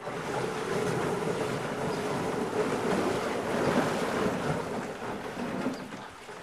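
River water moving and lapping around a canoe's hull as it drifts, mixed with wind noise on the microphone; a steady wash that eases a little near the end.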